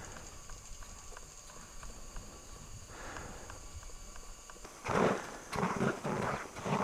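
Quiet at first, then about five seconds in, boots crunching through snow in steady walking steps, about two a second.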